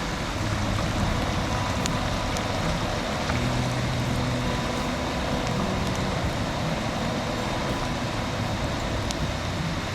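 Steady rushing of a mountain stream, with a few faint sharp clicks.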